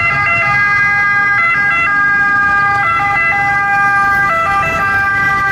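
Electronic ambulance siren sound for a toy ambulance: steady synthetic tones that hold and then step between pitches several times.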